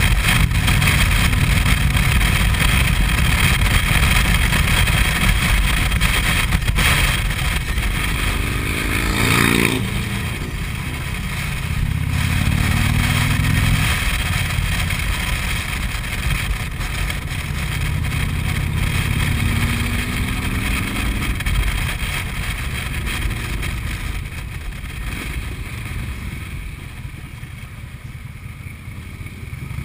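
Harley-Davidson Street Glide Special V-twin engine running under way, with wind noise over the helmet-mounted microphone. The engine pitch rises under acceleration several times, and it falls quieter near the end as the bike slows.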